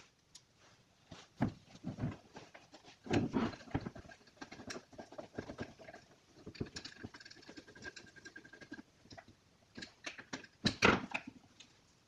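Quiet handling sounds of a Honda distributor being worked on by gloved hands: scattered plastic clicks, taps and scratchy rubbing as its parts are fitted back together, loudest a few seconds in and near the end.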